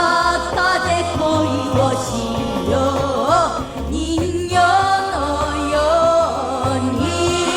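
A song with a voice singing a wavering melody over a steady bass beat.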